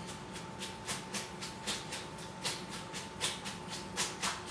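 Cooked macaroni being shaken in a colander over the sink to drain off the water, a quick run of swishing rattles, about four a second.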